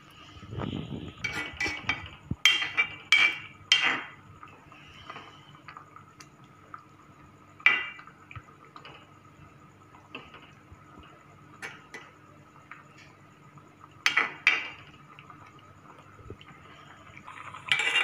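Steel spoon clinking and scraping against an aluminium pot while a thin coconut-milk stew is stirred. A run of sharp clinks in the first four seconds, then scattered single clinks, with a pair about fourteen seconds in.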